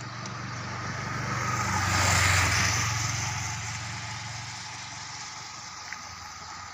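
Motorcycle engine idling steadily close by. A vehicle passes, its noise swelling to a peak about two seconds in and then fading away.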